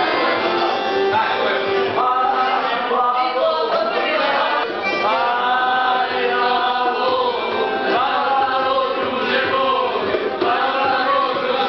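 Music with several male voices singing together.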